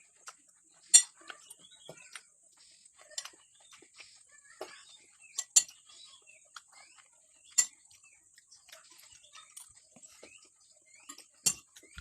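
Cutlery clinking sharply against a plate a few times, with many small bird chirps and a steady high hiss behind.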